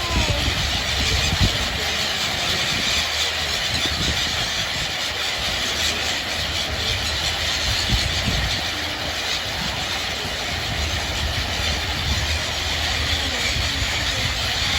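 A vehicle running steadily: a continuous low rumble with hiss over it.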